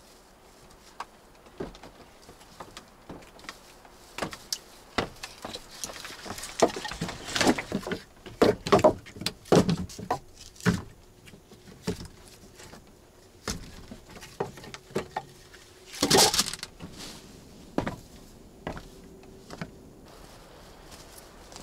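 Scattered knocks, clicks and thumps of things being handled, coming thickest and loudest from about six to eleven seconds in, with one short, loud rush of noise about sixteen seconds in.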